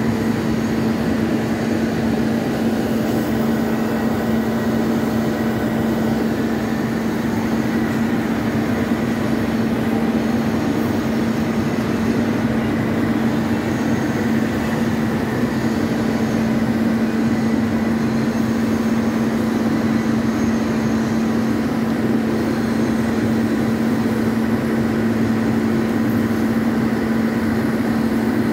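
Large metal lathe running steadily with a constant hum while a carbide insert takes a facing cut on the shoulder of a big steel shaft.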